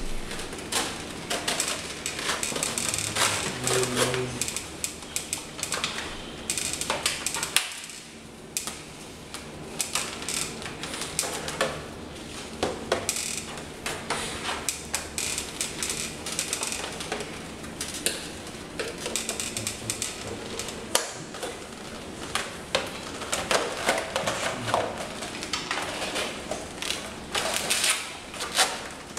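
White plastic Stormtrooper armour plates (the abdomen front and back plate) clattering and knocking as they are handled and strapped on, with many irregular clicks and rattles of the straps and fittings.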